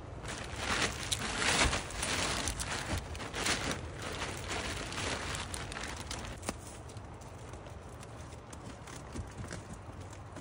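Blue plastic tarp rustling and crinkling as it is pulled and wrapped around a homemade kayak frame, loudest in the first six seconds and fainter after. A single sharp click about six and a half seconds in.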